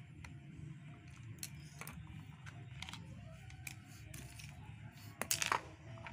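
Scattered plastic clicks from a toy car's wired remote being handled and its buttons pressed, with a louder cluster of clicks about five seconds in. No motor is heard: the toy is dead and its motor does not turn.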